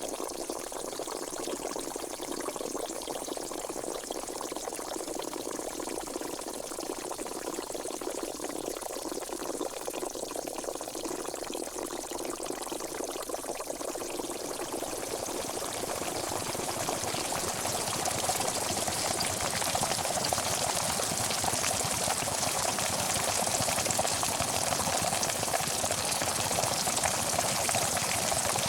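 Pot of water boiling on the stove, a continuous bubbling rush that grows louder and fuller about halfway through as the boil strengthens.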